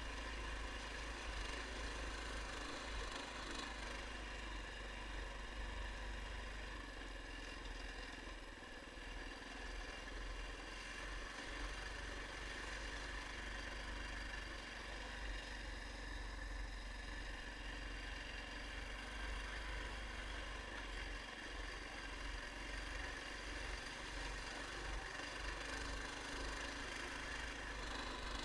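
Engine of an SR-21 Light Pro all-terrain vehicle running steadily, with a constant low rumble.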